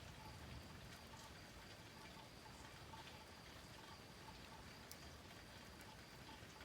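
Near silence: faint outdoor background hiss with a faint steady high tone, soft repeated short notes and a few light ticks; no thunder.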